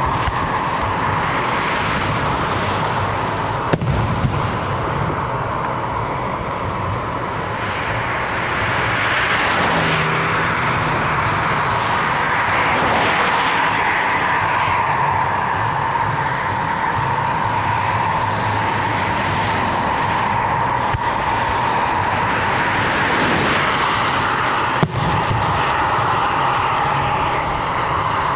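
Steady road noise of motor vehicles, with several vehicles swelling louder and fading as they pass, and two sharp clicks, one a few seconds in and one near the end.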